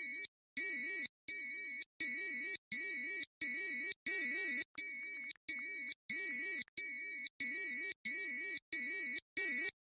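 Emergency alert tone: a high-pitched electronic beep repeated in about fourteen half-second bursts, roughly one and a half a second, over a warbling lower undertone. It stops near the end.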